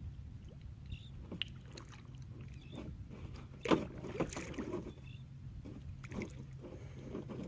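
Water splashing and knocks around a kayak, in irregular strokes over a steady low hum. The loudest splash comes a little before the middle.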